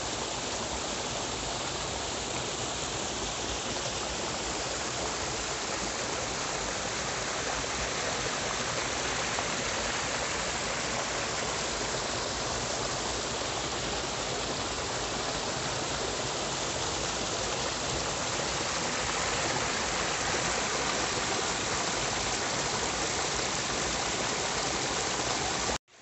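Water rushing steadily down a rocky stream channel and a small waterfall splashing into a pool. It grows slightly louder partway through and cuts off suddenly just before the end.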